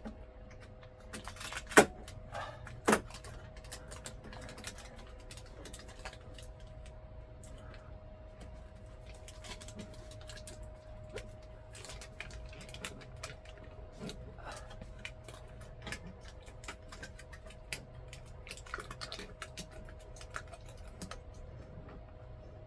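Scattered small clicks and taps of hand work with a knife on an RV air conditioner, with two louder sharp clicks about two seconds in, over a steady faint hum.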